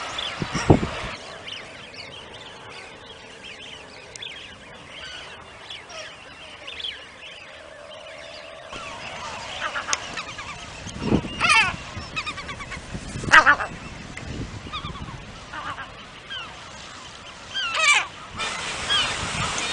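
Seabirds calling at a colony: scattered short, harsh calls, loudest about eleven and thirteen seconds in and again near the end, over a low steady hiss.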